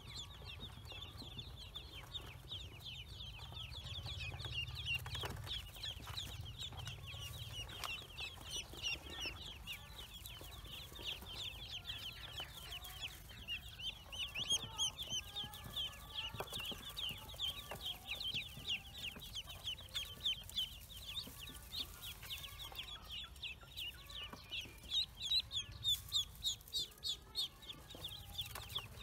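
Ducklings peeping: a continuous stream of short, high peeps from several chicks at once, louder near the end.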